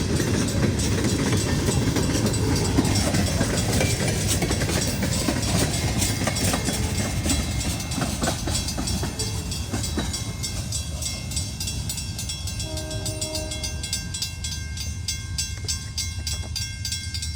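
Great Lakes Central Railroad train rolling past: a steady low rumble with wheels clicking over rail joints, slowly growing quieter. A short pitched tone sounds briefly about thirteen seconds in.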